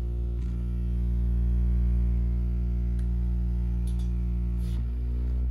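The built-in massage motor in a gaming chair's lumbar pillow running, a steady low hum.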